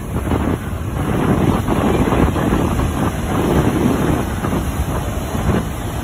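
Wind buffeting the microphone with a loud low rumble, over the rush of breaking ocean surf.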